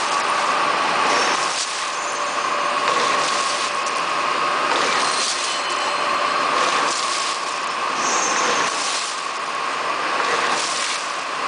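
Bubble film bag making machine running: a steady mechanical whine and hiss that swells at a regular beat about every one and a half to two seconds as it works.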